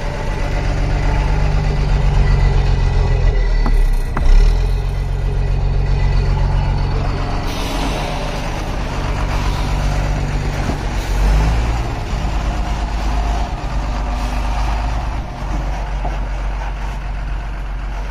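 Heavy truck's diesel engine running, its speed shifting up and down several times, with a short hiss of air from the air brakes about seven seconds in.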